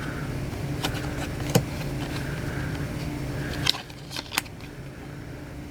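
Trading cards being handled and flipped through, giving a few sharp card snaps and clicks, over a steady mechanical hum.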